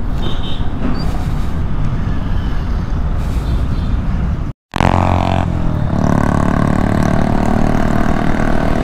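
Motorcycle engine running with wind and road noise, picked up by a helmet-mounted microphone while riding. The sound cuts out for a moment about four and a half seconds in; after that the engine note is steady, as at cruising speed on the highway.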